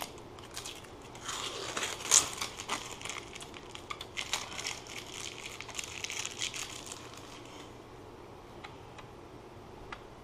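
Plastic wrapping being pulled and crinkled off a graphics card: a run of crackling rustles with one sharp crackle about two seconds in, dying away after about seven seconds, then a few faint ticks.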